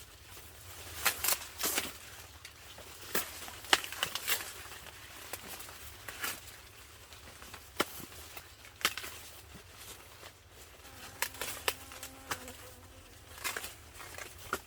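Dry corn husks and stalks rustling, with irregular sharp snaps and crackles, as from corn ears being picked. A faint short pitched call about eleven seconds in.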